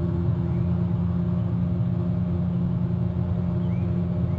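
A steady low mechanical hum that holds unchanged throughout, with a faint short chirp about four seconds in.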